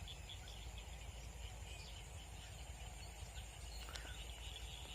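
Faint rural field ambience: a steady high chirping of insects over a low rumble of wind on the microphone, with a small tick about four seconds in.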